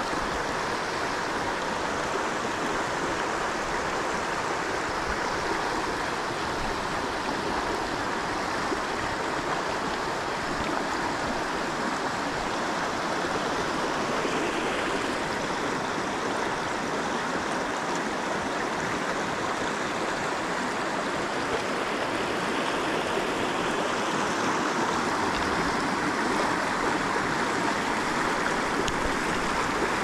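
A mountain stream rushing, a steady even noise of flowing water that does not let up.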